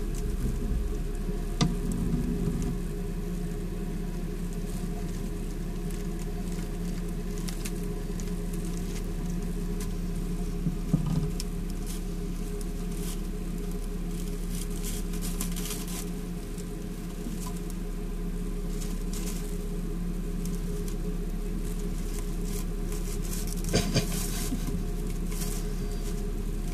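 Faint, scattered crackling rustle of shredded paper bedding as small snakes move and feed in it, over a steady low hum. A couple of slightly louder clicks come about eleven seconds in and again near the end.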